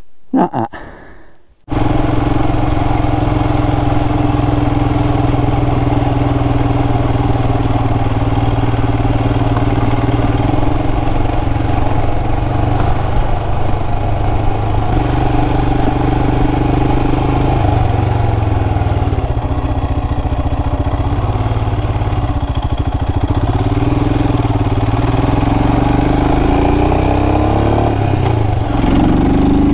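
Royal Enfield Himalayan's single-cylinder engine comes in suddenly about two seconds in and runs steadily, rising in pitch near the end.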